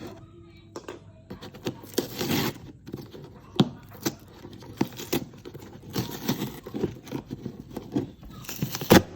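Packaging being handled and opened: irregular rustling, scraping and tearing, with scattered knocks and a louder knock near the end.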